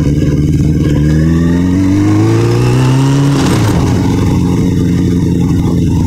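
Motorcycle engine accelerating, its pitch rising steadily, then dropping sharply about three and a half seconds in as the rider shifts up a gear, and running steadier after that.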